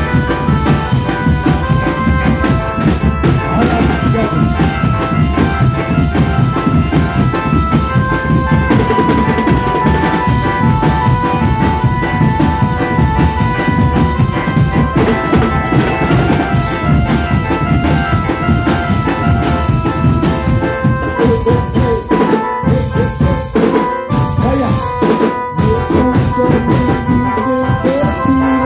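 A drum band playing a steady, dense beat on snare and bass drums, with a higher melody of held notes over it. A few short breaks in the drumming come about three-quarters of the way through.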